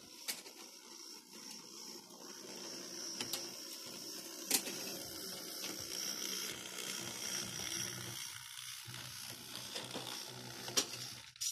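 Model railway train running past: the saddle tank locomotive's electric motor and gearing whirring steadily as it passes with its coaches, the wheels giving a few sharp clicks over the pointwork and rail joints.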